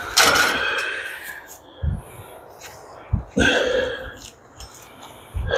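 A man breathing hard as he strains to lift a heavy rock: two long exhales, one near the start and one about three and a half seconds in, with a shorter one near the end and a few dull low thumps between.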